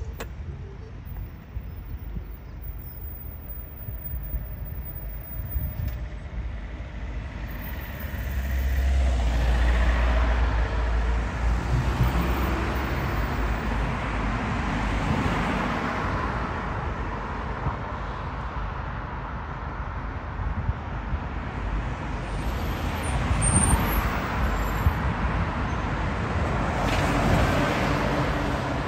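Jet airliner landing: a broad engine roar that swells about eight seconds in and again near the end, with wind gusting on the microphone.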